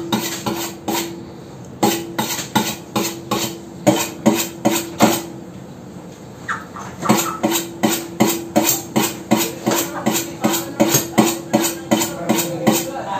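Kitchen knife being sharpened by hand: quick, rhythmic metal-on-metal strokes of the blade, about three a second, with a pause of a couple of seconds in the middle.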